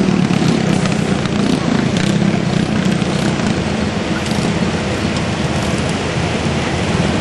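Steady loud din of car engines running and crowd voices, with scattered small crackles.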